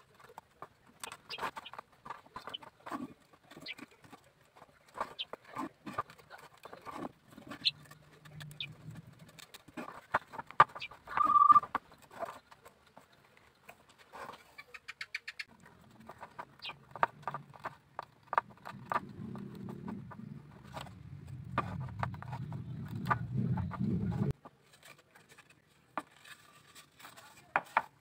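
Light irregular clicks and taps of thin bamboo sticks being handled and fitted into a bamboo bird-cage frame. A louder low rumbling noise comes in past the middle and cuts off suddenly a few seconds before the end.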